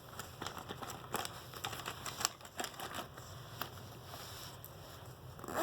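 Light rustling and crinkling with scattered small clicks, from school supplies being handled.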